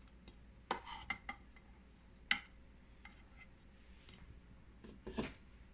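Scattered clinks and knocks of kitchen utensils against dishes, about five sharp ones spread apart, the sharpest a little past two seconds in.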